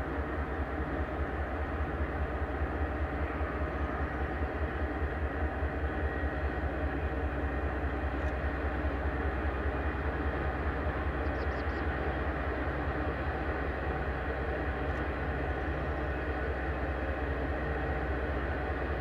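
Canadian Pacific diesel freight locomotive hauling a coal train, its engine running with a steady deep drone.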